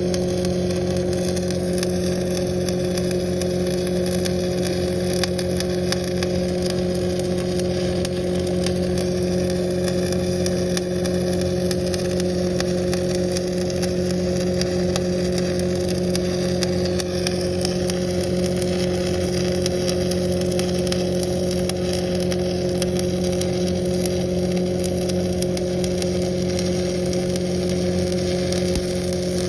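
Lincoln Frontier 400X engine-driven welder's diesel engine running at a steady, unchanging speed, with a continuous crackling hiss over it, typical of a 7018 stick-welding arc burning.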